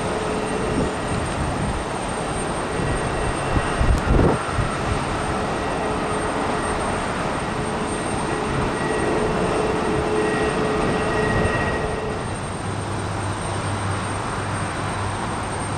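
Jet airliner engines running, a steady rush of noise with a faint whine, and a low thump about four seconds in.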